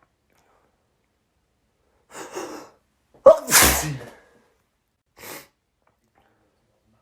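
One loud sneeze about three seconds in, from a person with a head cold. A short breathy sound comes just before it and a brief faint one about a second after.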